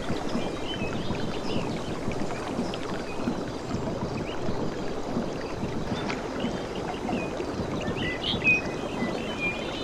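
Small waves washing steadily on a beach, with short high chirps scattered through, the loudest about eight and a half seconds in.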